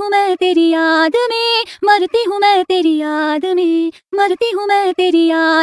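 Music soundtrack: a high female voice singing a melody of held, sliding notes, with almost no accompaniment, breaking off briefly about four seconds in.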